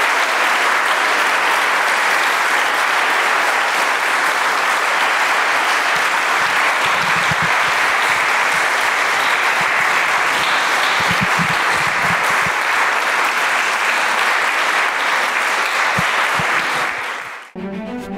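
Audience applauding steadily, fading and cutting off about a second before the end, where low bowed-string music begins.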